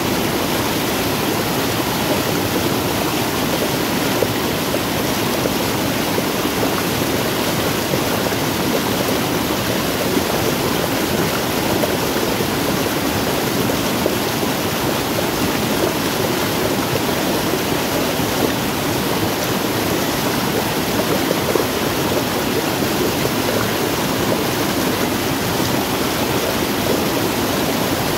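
Muddy rainwater runoff rushing down a small cascade in an eroded gully, a steady, loud, unbroken rush.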